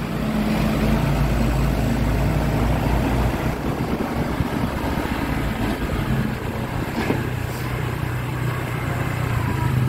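Mitsubishi Canter light truck's diesel engine running at low speed as the truck moves slowly, a steady low hum with a deeper rumble in the first few seconds.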